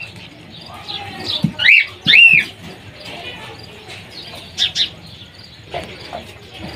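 Bird chirps: two loud, arching chirps about two seconds in, then two shorter, higher ones a little over two seconds later.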